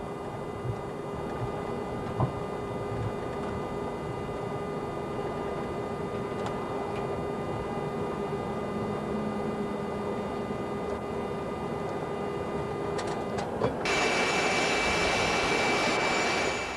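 Boeing 737-300 jet noise on board: a steady rush of air and engine with several steady humming tones. About fourteen seconds in, a much louder rush with a high whine comes in suddenly and fades out just before the end.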